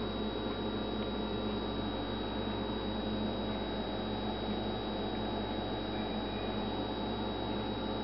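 Steady electrical hum with a thin, high-pitched whine held throughout; nothing else happens.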